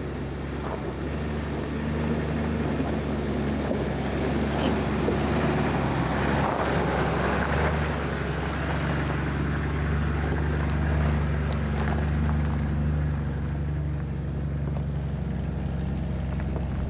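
Toyota Land Cruiser pickup crawling up a steep, rocky gravel track in low-range first gear with the rear differential locked: a steady low engine drone with tyres crunching over loose stones and a few sharp stone clicks.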